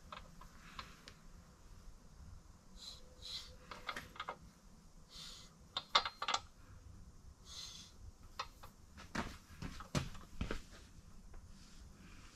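Scattered light metallic clicks and knocks as a BMW crankshaft, resting on its end main journals in a bare engine block, is turned slowly by hand, with a few short hisses in between.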